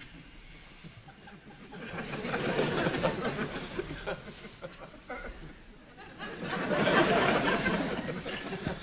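Studio audience laughing in two waves, the first about two seconds in and a slightly louder one near the end.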